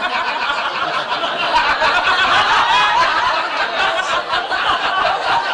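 An audience laughing, with several voices talking over each other.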